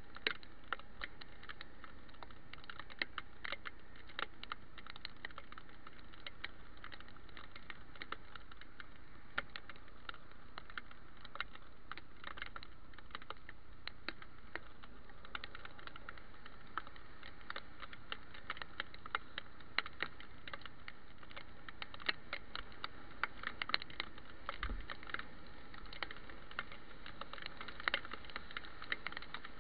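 Raindrops tapping on a head-mounted camera's housing: irregular sharp ticks, several a second, over a steady hiss of wet riding.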